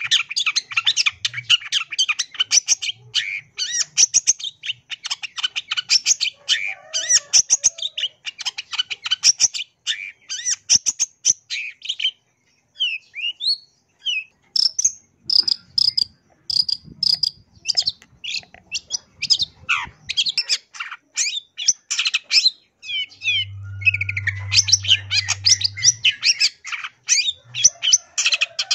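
Long-tailed shrike singing a fast, varied chattering song full of mimicked phrases of other birds. About twelve seconds in the song thins to scattered separate notes, then the dense chatter picks up again near the end.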